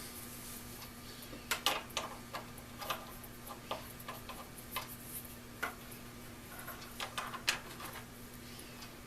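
Irregular clicks and light taps from handling the newly re-corded Weller soldering gun while it is tested, clustered between about one and a half and seven and a half seconds in, over a faint steady electrical hum.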